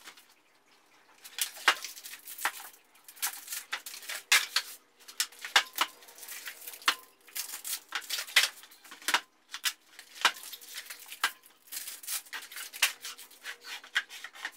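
Cardboard battery boxes being opened and the LiFePO4 cells taken out of their packing: irregular rubbing and scraping of cardboard, with many short knocks and clicks as boxes and cells are handled and set down, starting about a second in.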